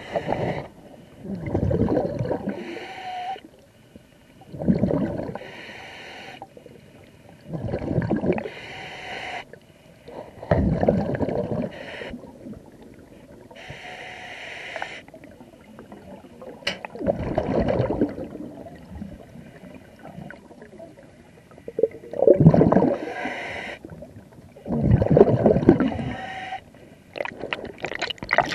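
Scuba diver breathing through a regulator underwater. A hiss on each inhale alternates with a louder gurgling rush of exhaled bubbles, roughly every three seconds, with a longer pause midway.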